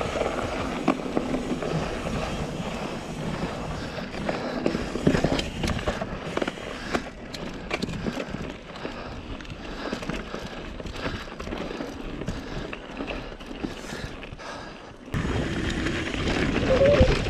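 Mountain bike rolling over a dirt forest trail, heard close up from the rider: steady tyre noise with frequent clicks and rattles of the bike over bumps. About 15 seconds in it changes abruptly to a louder stretch of rolling noise.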